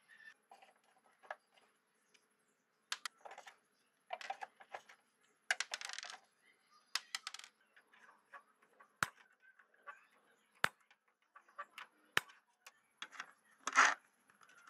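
Scattered plastic clicks, taps and short scrapes from handling an opened old PC speaker's plastic case, circuit board and wiring. Near the end comes a louder scrape as a ratchet socket wrench goes onto the volume control.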